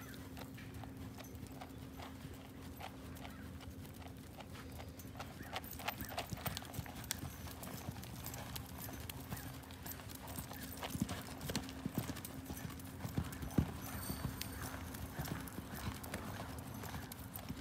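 Hoofbeats of a ridden quarter horse jogging on arena sand: a run of light clicks and thuds in gait rhythm, louder and busier through the middle.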